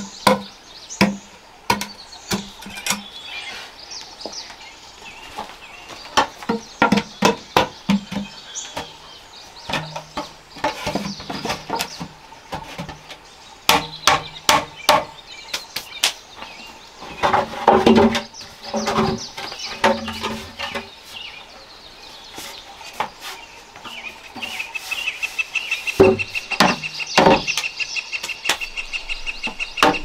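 Machete chopping into a hollow bamboo tube: sharp knocks about twice a second, each with a short ringing note. Later come bunches of wooden knocks as bamboo poles are handled and fitted together, with a steady high whine from near the end.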